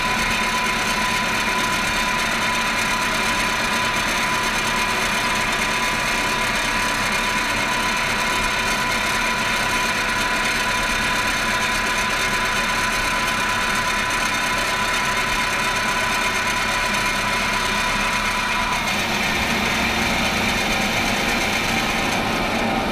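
Friction stir welding machine running as its spinning tool traverses along the joint between two aluminium sheets: a steady mechanical hum and whirr of the spindle and drive. A steady high whine runs through most of it and stops near the end.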